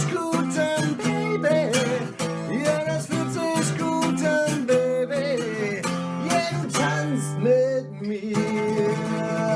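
Music: a guitar-led passage of a pop song with a steady beat and no clear words.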